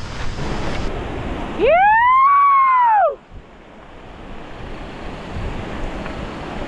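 A single loud, siren-like wail that rises and then falls in pitch over about a second and a half, heard over steady wind and riding noise. It stops abruptly and is followed by quieter background noise.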